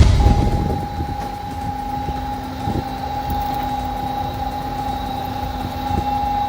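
Wood-processing machine running with a steady high whine and a lower hum over an uneven rumble, after a loud low thump at the start.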